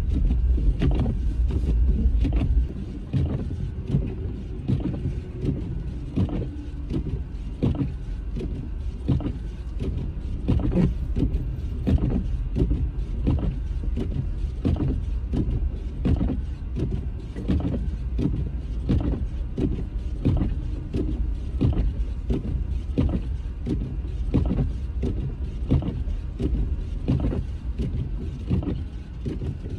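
Car driving on snow-covered roads, heard from inside the cabin: a steady low rumble of engine and tyres, a little louder for the first couple of seconds, with short regular thumps about once a second.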